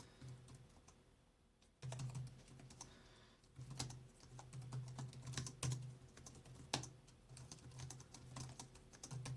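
Typing on the keyboard of an ASUS ROG Strix G15 (2021) gaming laptop: quick, irregular key clicks that start about two seconds in and run on steadily.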